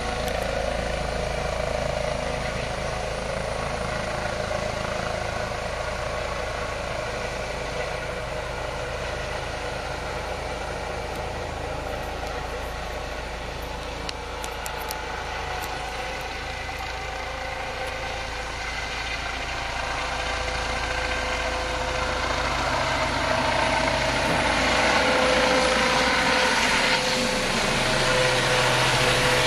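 Air ambulance helicopter running, its engines and rotor making a continuous sound with steady tones, growing louder over the last several seconds.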